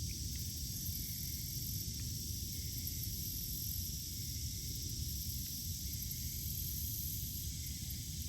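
Steady outdoor creekside ambience: an even high-pitched hiss over a low, uneven rumble, with no distinct events.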